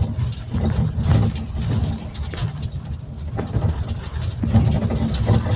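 Cabin of a King Long XMQ6128AYW coach under way: a low, pulsing diesel engine drone and road rumble, with scattered light knocks and rattles.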